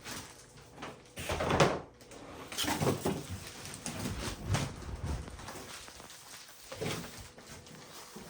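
Handling noise of unpacking: irregular rustles and knocks as packing material and statue parts are moved about, the loudest burst about a second and a half in.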